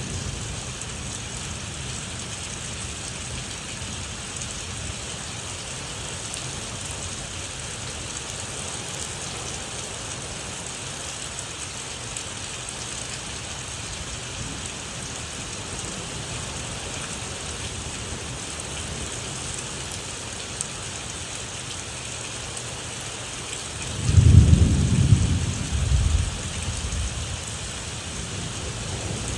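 Steady rain with a low rumble of thunder; near the end a louder peal of thunder rolls for about three seconds.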